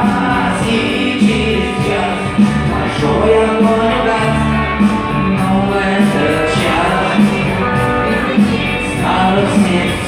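Music: a guitar-led rock song with a steady beat, without clear sung words.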